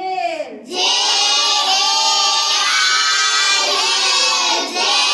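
A group of children chanting loudly in unison in a sing-song chorus, most likely spelling out the word just announced. The chorus starts just under a second in and carries on without a break.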